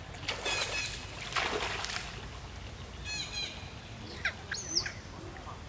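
Macaques giving short high squeals and chirps, several of them in quick succession, with a rising squeal near the end. A brief burst of water splashing comes about a second and a half in.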